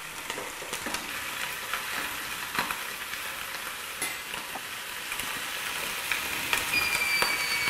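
Mackerel fillets sizzling on the aluminium cooking plate of a Velox high-speed contact grill with the lid down: a steady frying hiss with a few faint ticks. Near the end the grill's timer starts a steady high beep as the 90-second cook finishes.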